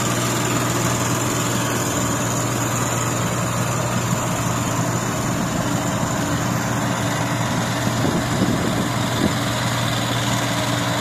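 8060 rice combine harvester's diesel engine running steadily at a constant speed.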